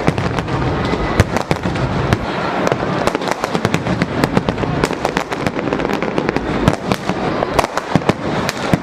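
Dense New Year's fireworks: a continuous rapid crackle of bangs and pops, many overlapping each second, with firecrackers among the aerial shells.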